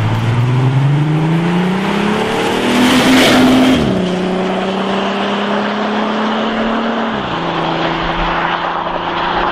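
Skoda Superb accelerating toward and past, its engine rising in pitch and loudest as it goes by about three seconds in. The pitch then drops twice as it pulls away.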